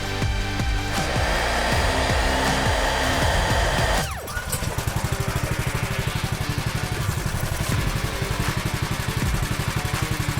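Background rock music with distorted guitar and a fast, steady beat; a falling sweep about four seconds in leads into a driving, evenly pulsing section.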